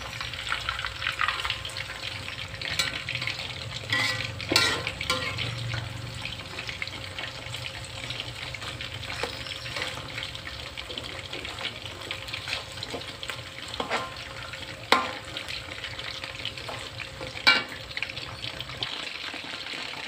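Battered chicken pieces deep-frying in hot oil in a steel wok: a steady crackling sizzle. A metal spatula clinks and scrapes against the wok a few times as the pieces are turned.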